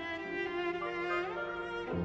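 Solo cello playing sustained bowed notes, gliding up to a higher note about a second and a half in, with other orchestral strings underneath.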